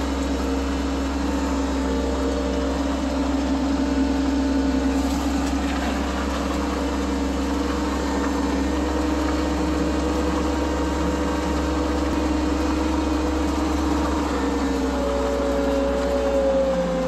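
Cat skid steer's diesel engine running steadily while the machine drives along a gravel road with a full bucket, its pitch easing up slightly partway through and dropping again near the end.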